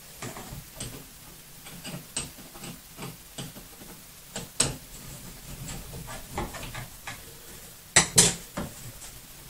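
Small metal clicks and scrapes as a hand screwdriver works the screw in a towel bar's mounting bracket, with two louder clacks close together near the end.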